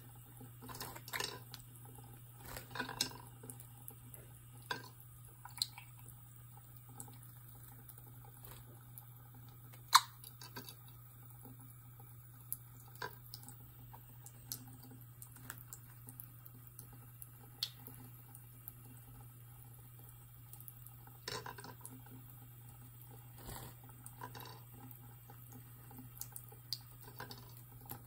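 A budgerigar bathing under a thin trickle from a tap into a sink: faint running water with scattered small drips and splashes as it shakes and flutters. A single sharp click stands out about ten seconds in, over a steady low hum.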